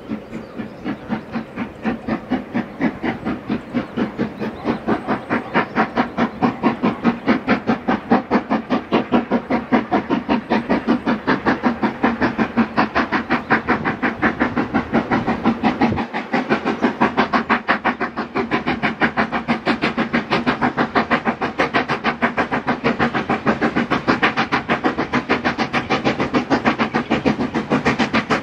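Steam locomotive working, its exhaust chuffs in a fast, even beat heard through an open carriage window, growing louder over the first few seconds.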